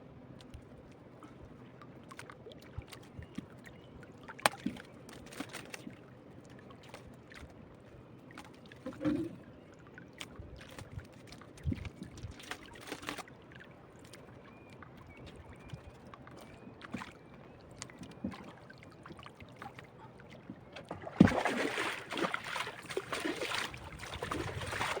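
Scattered knocks and clicks against a low background on a small fishing boat. About 21 seconds in there is one sharp thump, followed by a few seconds of louder rustling, splashing-type noise.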